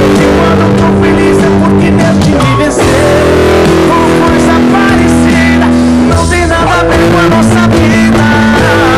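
Stratocaster-style electric guitar playing a melodic lead of long held notes over a fuller accompaniment with bass, with notes wavering in vibrato near the end.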